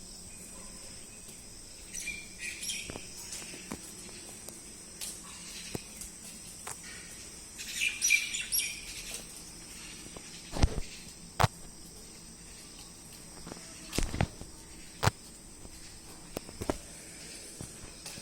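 A steady high insect drone with bunches of bird chirps about two seconds in and again around eight seconds. Later, several sharp knocks, the loudest a little after ten seconds.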